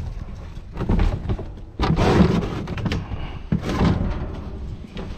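A plastic wheelie bin being pushed back into its metal lattice enclosure and the enclosure closed: a run of thumps, knocks and metal clanks, several of them sharp, over about four seconds.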